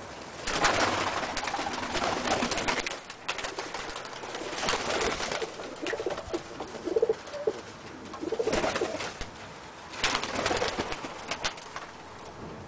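Pigeons cooing in short low calls, mixed with several louder bursts of noise.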